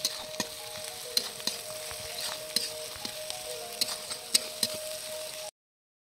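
Sliced onions and whole spices sizzling in hot oil in a steel kadai, with a spatula scraping and clicking against the metal pan as they are stirred. The sound cuts off suddenly about five and a half seconds in.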